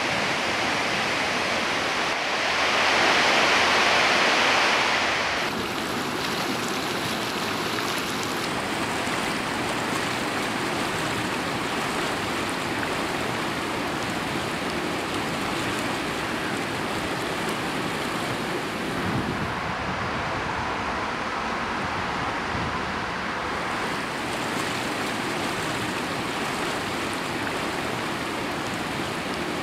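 Steady rushing of river water. It is louder for a few seconds near the start, where water spills over a weir, then settles into the even rush of a river running high in flood.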